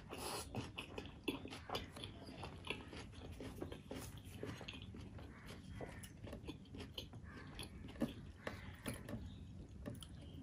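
Close-miked eating sounds of a person chewing food: an irregular, steady run of small mouth clicks, smacks and chewing noises.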